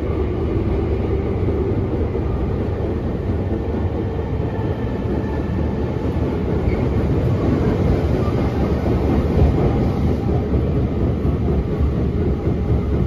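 Tobu 9000 series commuter train, set 9108F, running through a subway tunnel, heard from inside the passenger car: a steady wheel-and-track rumble, strongest in the low end.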